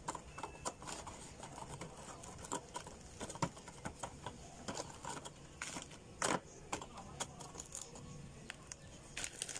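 Crinkling of a plastic graham cracker wrapper and light, irregular clicks and taps as the crackers are pulled out and laid into a plastic container.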